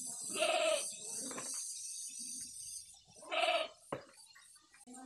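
An animal calling twice, each call about half a second long, the second about three seconds after the first.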